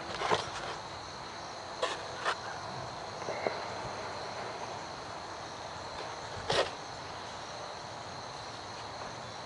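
Insects, likely crickets, singing a steady high continuous note, with a few short clicks and knocks from the foam model plane being handled.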